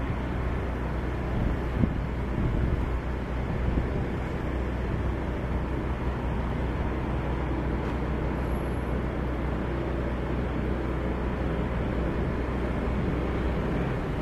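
A ship's engine running with a steady low rumble as the vessel pulls away from the quay, with one short knock about two seconds in.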